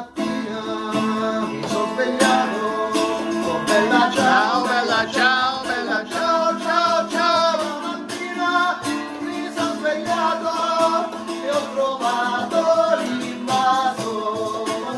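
A man sings a wavering melody while strumming chords on a small travel guitar, with a tambourine played along.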